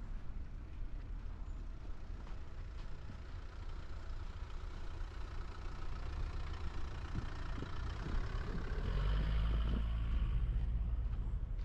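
A road vehicle driving by, its low engine rumble and road noise growing louder over the last few seconds.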